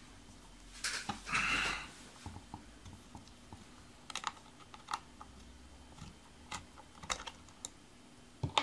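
Small, irregular clicks and scrapes of a hex key turning Torx screws in a plastic BMW door handle housing, with a short, louder scrape about a second in.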